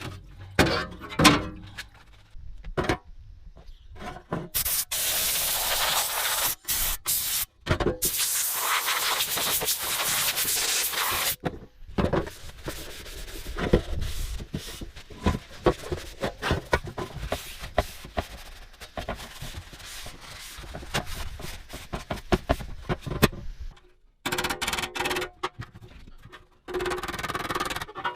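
Rust removal and refinishing on an old metal tool box, in quick cuts: two long hissing bursts, then a stretch of scraping and rubbing on metal with many clicks and knocks. Music comes in near the end.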